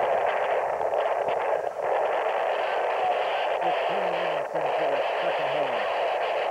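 Steady rushing outdoor noise on the camcorder microphone, with a player's voice shouting a lineout call in several short bursts from about halfway through, before the throw-in.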